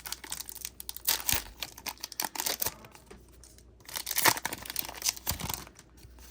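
Foil Pokémon booster pack wrapper crinkling as it is handled, with cards being shuffled; the crackling comes in irregular clusters, loudest about a second in and again around four to five seconds in.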